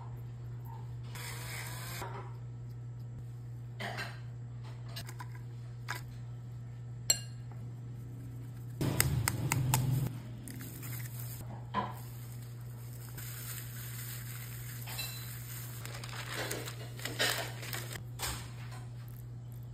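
Spoon and utensils clinking and tapping against a ceramic bowl while ground chicken is seasoned and mixed, with a burst of sharp taps about nine seconds in and softer scraping near the end. A steady low hum runs underneath.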